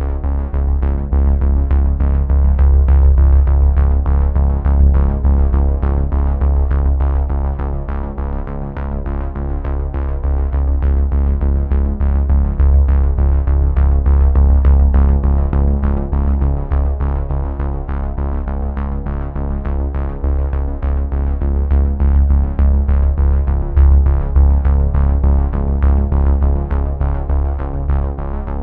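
Background music: a synthesizer track with a steady beat and heavy bass.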